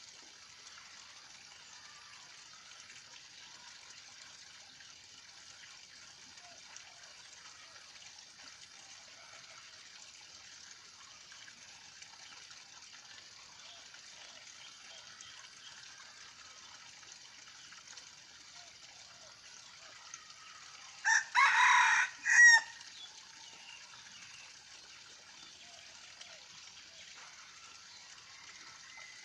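Red junglefowl rooster crowing once, a short clipped crow about three-quarters of the way through, over a faint steady background hiss.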